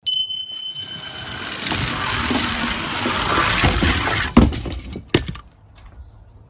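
A dense clatter of small hard objects rattling for about four seconds, with a brief high ring at the start, then two sharp knocks about three-quarters of a second apart.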